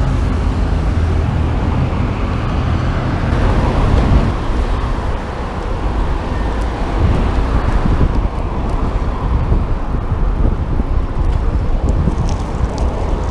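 Street traffic and wind rumbling on the microphone of a camera on a moving bicycle, a steady noise with no clear single event.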